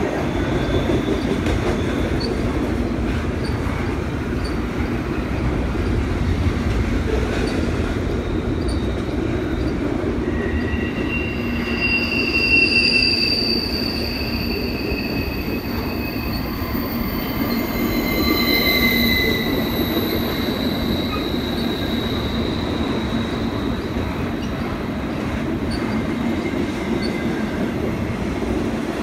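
Double-stack intermodal freight train rolling past: a steady rumble of wheels on rail. From about ten seconds in to about twenty-two seconds, the wheels give out several high-pitched squeals that come and go as the cars take the curve.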